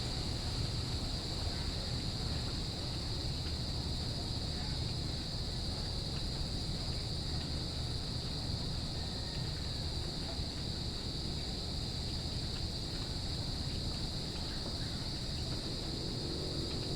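Crickets chirping in a steady, unbroken high-pitched chorus over continuous rain, with a low steady rumble underneath.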